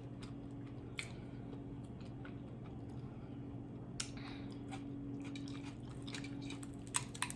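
Close-miked mouth sounds of someone eating fried tilapia: chewing, with sharp wet clicks about a second in, again about four seconds in, and several near the end, over a steady low hum.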